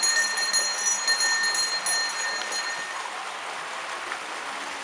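Temple bell rung rapidly during aarti, a quick run of metallic strikes with a sustained ring. The strikes stop about two seconds in and the ringing dies away soon after.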